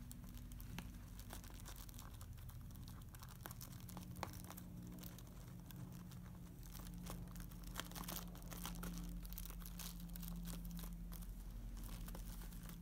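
Budgerigar crinkling and popping bubble wrap, a faint run of irregular small pops and crackles.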